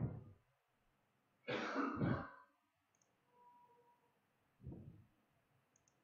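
A man clearing his throat about one and a half seconds in, with shorter, quieter breath sounds just before and near the end.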